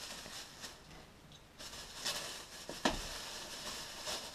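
Plastic shopping-bag wrapping rustling and crinkling as it is cut and pulled open by hand, quieter for a moment about a second in, with a single sharp click near three seconds in.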